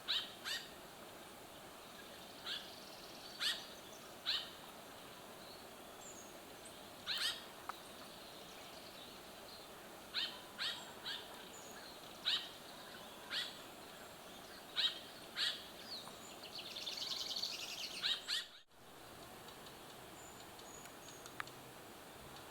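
A bird calling in forest: about a dozen short, sharp notes, each falling quickly in pitch, repeated irregularly every second or two. Near the end there is a brief stretch of scratchy noise, and then the sound cuts off abruptly.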